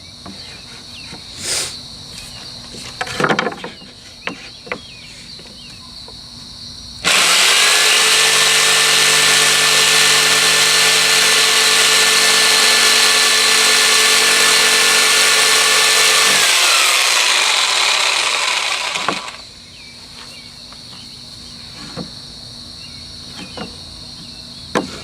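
A power tool's electric motor switches on abruptly about seven seconds in and runs loud and steady for about nine seconds. It is then switched off and winds down, its pitch falling as it stops. Before it starts there are only a few light knocks and handling sounds over a steady high insect chirr.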